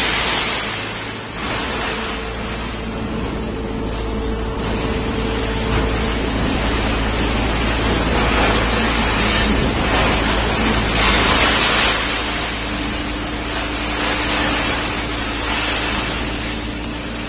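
Three-ram hydraulic metal baler running: a loud, steady rush of machine noise with a low hum and faint held whine tones, swelling louder for a few seconds in the middle.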